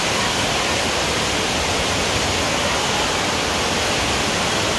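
Steady, loud rush of water running down the water slides, an even noise with no breaks.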